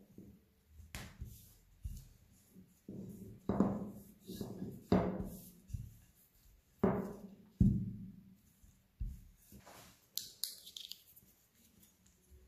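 Wooden rolling pin worked back and forth over shortcrust pastry on a stainless-steel worktop, making short rumbling strokes about once a second. Near the end there is a brief crinkle of baking paper as the rolled disc is lifted.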